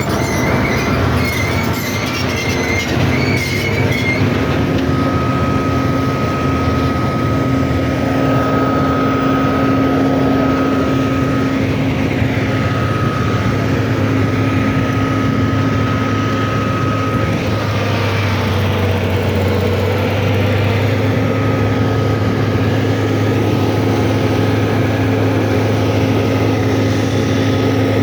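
A large machine running steadily, with a low hum and a thin high-pitched whine that drops out and returns several times.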